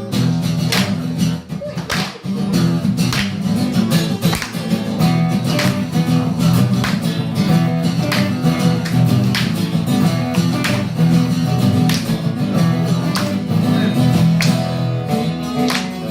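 Band playing an instrumental passage of a song: guitars over a bass line with a steady beat.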